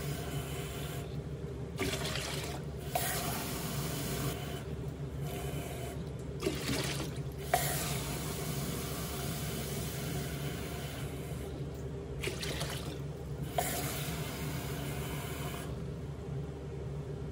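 Water poured from a plastic measuring jug into a stainless steel bowl in a sink, in several splashing pours a second or two long, with a few light clinks. A steady low hum runs underneath.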